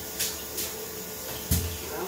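Tap running into a ceramic bathroom basin while the sink plug on its chain is rinsed and handled under the stream. A few sharp clicks and knocks of the plug and chain come through, the loudest with a dull thump about a second and a half in.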